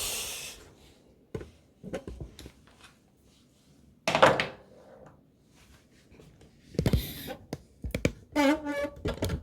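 Scattered thunks and knocks from hands and tools working on a kitchen food waste disposer under the sink, one sharp knock every second or two with quiet between, the strongest about four seconds in and a cluster near the end.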